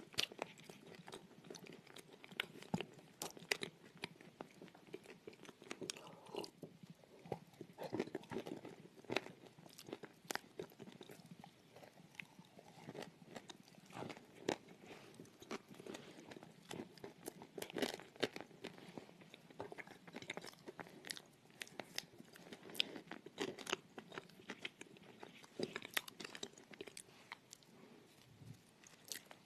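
Close-up mouth sounds of chewing and crunching a brittle chalk-like mass, with irregular crisp crackles and crunches several times a second.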